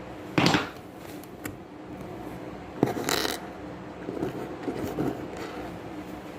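Clicks and scrapes of hands and a tool working on a laptop's plastic case: a short scrape about half a second in, a sharp click and scrape near the middle, then softer scratching.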